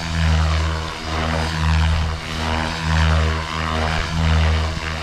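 Blade Fusion 550 electric RC helicopter in flight at raised head speed: the main rotor hums and whooshes with a motor whine. It swells and fades in a regular rhythm about four times as the helicopter manoeuvres.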